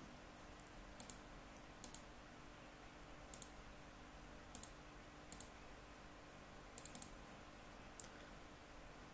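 Computer mouse clicking about ten times, single clicks and quick double clicks a second or so apart, over faint steady room hiss.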